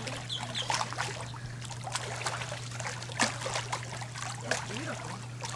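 Pool water splashing and trickling in small, irregular splashes, over a steady low hum.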